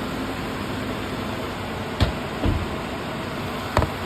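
Infiniti JX35's engine running steadily at idle while its alternator is being tested, with a few short sharp knocks about two, two and a half and nearly four seconds in.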